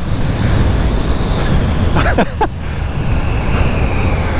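Fantic Caballero 500 motorcycle's 449 cc single-cylinder engine running under hard acceleration at speed, buried in heavy wind rush on the onboard microphone.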